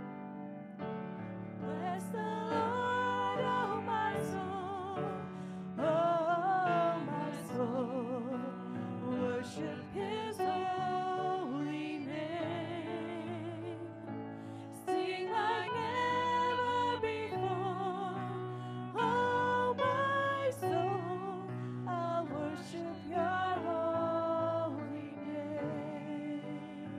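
Two women singing a slow worship song with wide vibrato, accompanied by sustained chords on an electric keyboard.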